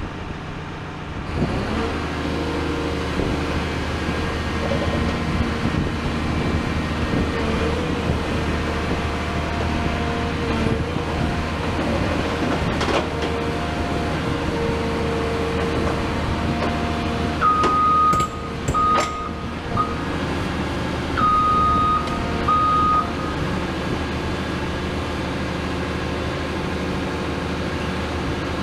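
CAT 336F long-front demolition excavator running, its Cat C9.3 diesel engine and hydraulic pumps giving a steady drone with a held hum as the long boom moves. A single knock comes near the middle, and about two-thirds through a machine warning beeper sounds in two short, irregular runs of beeps, the loudest sound.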